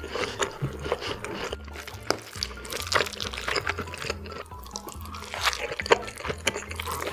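Background music with a repeating bass line, over close-miked eating sounds: a spoon scooping fried rice out of a king crab shell and wet, clicky chewing.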